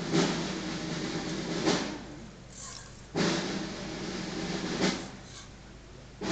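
A procession brass band playing a slow march: sustained brass chords punctuated by drum and cymbal strikes about every second and a half, dropping back briefly a little after two seconds in before a strong re-entry.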